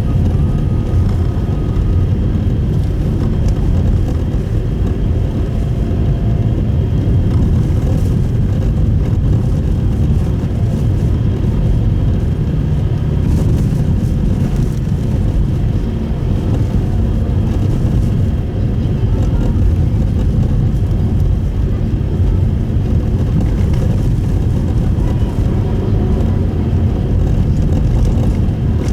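Steady road and engine noise heard from inside the cabin of a Subaru Impreza Sport (GP7) driving on a snowy road: an even low rumble that holds the same level throughout.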